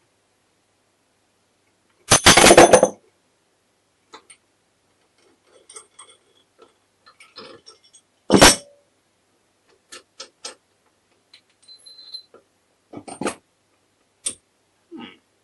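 Metal gearbox parts and tools clinking and knocking as they are handled and fitted, with a rattling run of quick clinks about two seconds in and one loud sharp metal knock about eight seconds in, then scattered light clicks.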